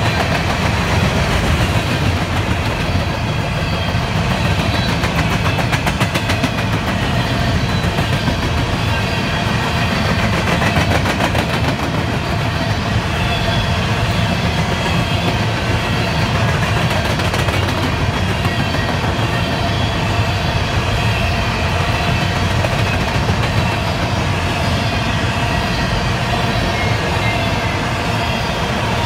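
Covered hopper cars of a CSX grain train rolling past: the steady noise of steel wheels running on the rails.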